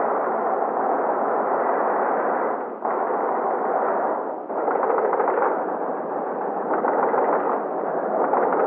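Continuous din of mechanical forging hammers pounding hot axe blanks, heard through an old film's narrow, dull-sounding soundtrack. It drops away briefly twice, about three and four and a half seconds in.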